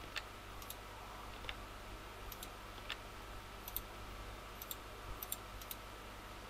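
Computer mouse clicking: scattered short clicks, some in quick pairs.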